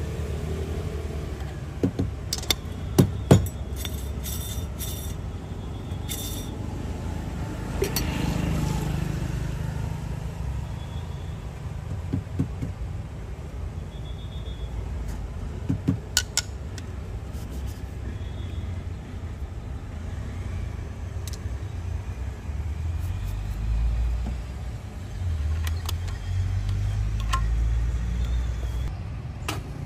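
Steady low rumble of road traffic, with a few sharp clicks and knocks of metal coffee tools being handled on the bar, the loudest about three seconds in.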